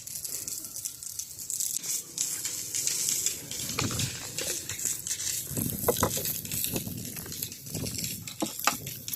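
Steady crackling and sizzling from cooking, with scattered louder knocks and rustles.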